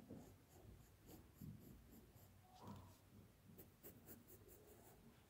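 Faint scratching of a pencil and its eraser on notebook paper, in short quick strokes that come in two clusters.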